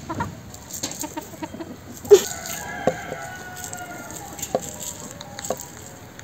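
A rooster crows once about two seconds in, a long call that falls slightly at the end. Later, a few short knocks of a knife cutting down onto a wooden board.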